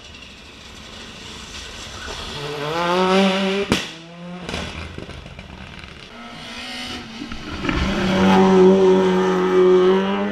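Race car engine at high revs on a hillclimb, rising in pitch and loudness to a peak, with a sharp bang about four seconds in; after a short lull it climbs again to its loudest near the end.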